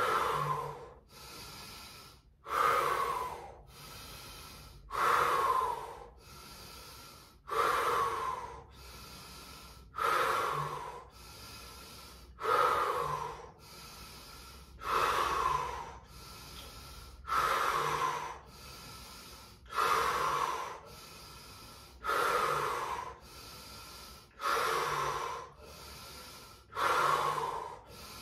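A person breathing deeply and audibly in a paced breathing exercise. A strong breath comes about every two and a half seconds, with a softer breath between each one.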